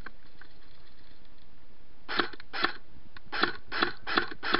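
Airsoft electric M4 rifle, a CYMA CM518, firing on semi-automatic: six single shots starting about two seconds in, coming two to three a second.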